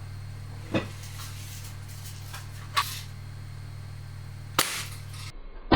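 Sheridan Cowboy BB rifle fired once at an onion: a single sharp crack about four and a half seconds in, after two lighter clicks. A steady low hum runs beneath until it cuts off near the end.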